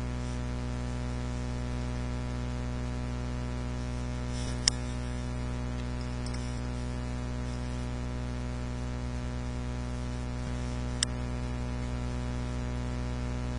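Steady electrical hum with many evenly spaced overtones, typical of mains hum picked up by a recording microphone. Two single sharp clicks stand out, about five seconds in and again near eleven seconds.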